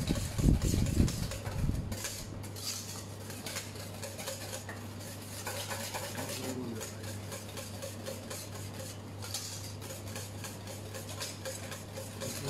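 Wire whisk beating a thick, lumpy cream cheese paste in a stainless steel bowl, with fast repeated strokes scraping and clicking against the metal, to work the mixture smooth. A low steady hum runs underneath.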